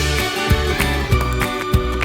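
Background music with a steady beat, plucked strings over a bass line.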